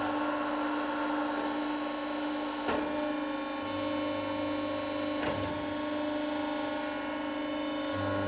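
Davi MCA CNC plate bending roll running with a steady machine hum. A sharp click comes twice, and a deeper drone sets in about halfway through and again near the end.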